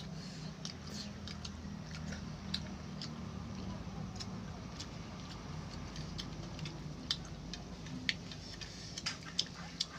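Eating sounds: chewing, with scattered sharp clicks over a low steady hum, the clicks coming more often near the end.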